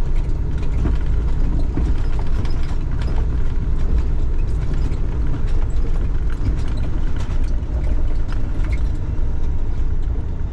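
Semi truck's diesel engine and road noise heard from inside the cab while driving: a steady low rumble.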